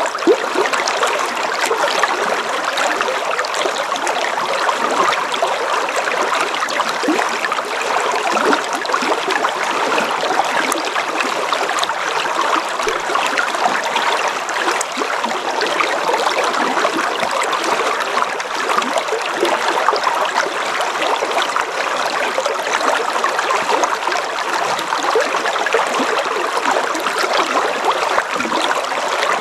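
River water flowing and babbling steadily, an even, unbroken rush.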